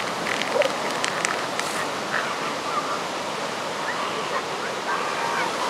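Steady surf hiss under a scattered chorus of short honking and squawking calls from many animals across an elephant seal rookery in pupping season.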